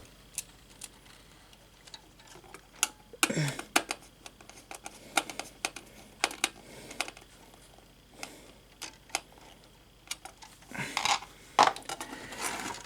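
Scattered small clicks and taps of plastic and metal as a wire is fastened into the screw terminal of a fire alarm's mounting bracket, with a denser run of handling noise near the end.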